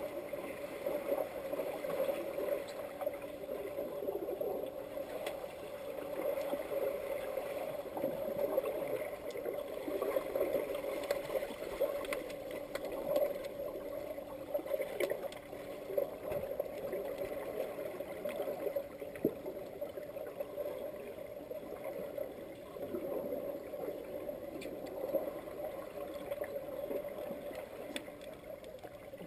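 Underwater sound of a swimming pool heard through a submerged camera: a steady, muffled hum and rush of churned water, with bubbling and many small clicks and knocks from swimmers kicking with fins.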